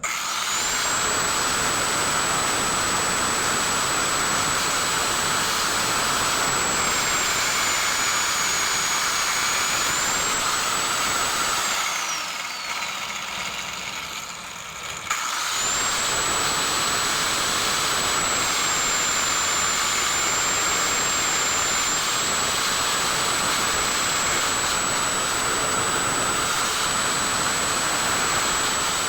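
A small high-speed electric power tool runs steadily with a high whine and a rushing hiss. It winds down with a falling pitch about twelve seconds in, then starts up again a few seconds later and keeps running.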